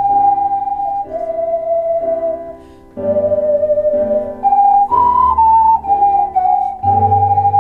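An ocarina ensemble playing a slow melody in unison, held notes stepping up and down, with a lower accompaniment sounding beneath. The music drops away briefly just before three seconds in, between phrases.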